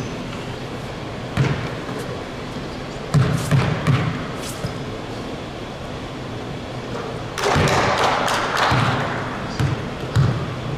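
Basketball bouncing on a gym floor: single thuds and a quick run of dribbles, echoing in the hall. About seven seconds in there is a loud rush of noise lasting a second and a half.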